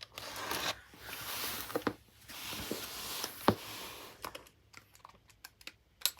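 Packing tape being slit and pulled on a cardboard shipping box: scratchy ripping and rustling in several stretches, with scattered clicks and one sharp knock about three and a half seconds in.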